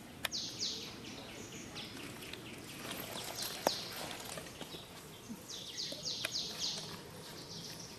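A bird calling in short runs of quick, high, falling notes, about four a second, repeated several times over a steady background hiss, with a few sharp clicks in between.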